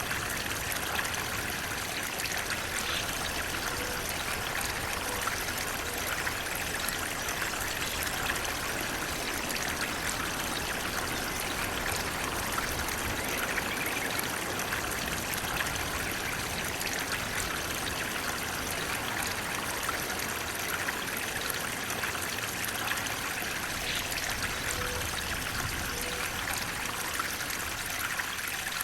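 Flowing water running steadily, with a bright trickling, splashing hiss that does not change in level.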